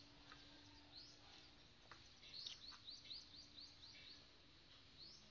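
Faint bird chirps: short rising chirps, with a quick run of about six in a row about halfway through.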